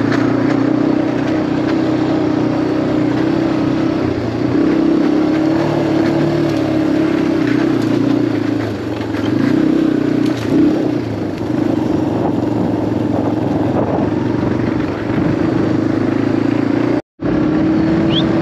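Farm motorbike engine running steadily at low speed, its pitch wavering a little as the throttle changes. The sound cuts out completely for a split second near the end.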